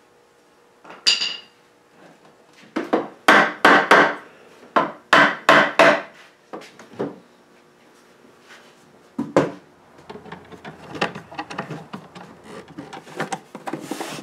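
Wooden knocks as the teak-veneered desk's parts are fitted and tapped together with a hammer: a single knock about a second in, then clusters of sharp knocks, and later a few single ones. From about ten seconds in come lighter, quicker clicks and scraping as a screwdriver turns the fasteners.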